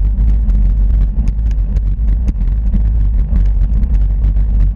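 Wind buffeting a handlebar-mounted action camera's microphone as the bicycle rides along, a loud steady low rumble, with irregular rattling clicks from the mount and bike shaking over the road surface.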